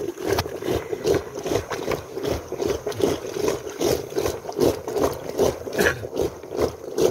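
Traditional Nepali wooden churn (madani) spun back and forth by a rope in a clay pot of curd, the churning stick sloshing and knocking in a steady rhythm of about two and a half strokes a second as butter is churned out for ghee.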